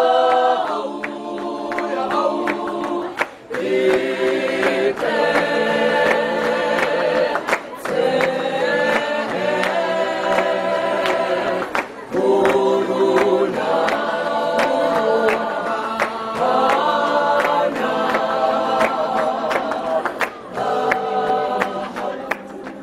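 A large group of school students singing together in chorus, in sung phrases a few seconds long with short breaks between them, with hand claps throughout.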